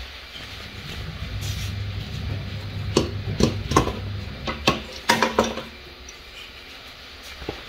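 Dishes and cutlery being handled: a run of sharp clinks and knocks clustered in the middle, with one more near the end, over a faint low hum.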